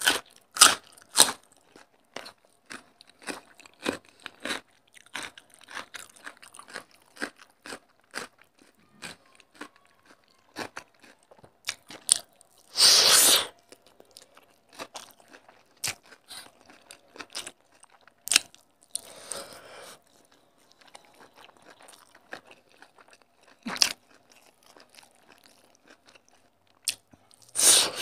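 Close-miked chewing and eating by hand: a string of short, crisp crunches as raw cucumber is bitten in the first couple of seconds, then steady wet chewing of rice and chicken curry. One louder noisy burst of about a second comes roughly halfway through.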